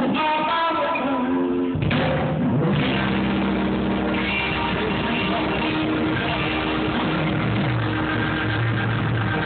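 Live rock band amplified through outdoor stage speakers: a few held, bending electric guitar notes, then the whole band with bass and drums comes in suddenly about two seconds in and plays on steadily.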